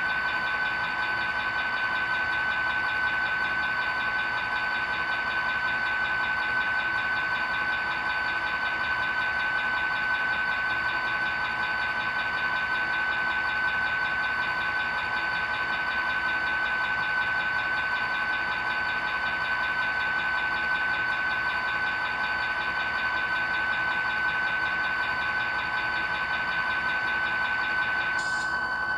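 Sound recording of an EMD diesel idling steadily, played by the ESU LokSound decoder through the small speaker of a ScaleTrains CSX SD40-3 model locomotive, with a steady high-pitched whine over it.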